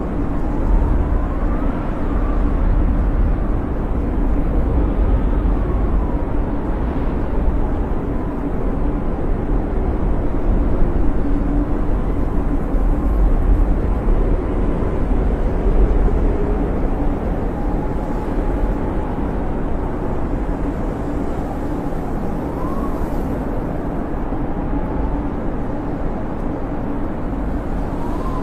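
Snowstorm wind howling steadily, with a deep rumble beneath and thin whistles that slowly rise and fall in pitch.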